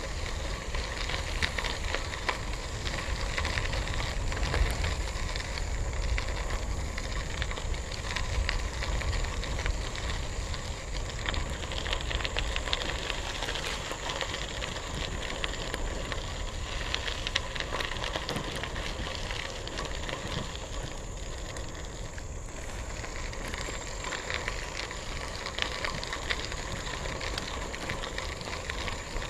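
Bicycle tyres rolling steadily over a gravel trail, a continuous crunching crackle of small stones under the wheels over a low rumble.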